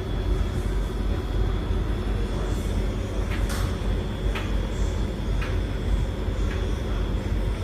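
Beko WS832425s washing machine spinning: a steady low drum rumble with a thin high whine, and light taps about once a second.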